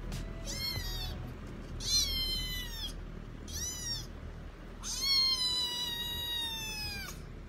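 Young tabby kitten meowing four times, high-pitched, each meow sliding down in pitch at its end; the last, about five seconds in, is the longest.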